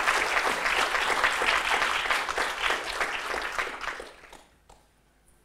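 Audience applauding at the end of a talk, the clapping dying away about four seconds in.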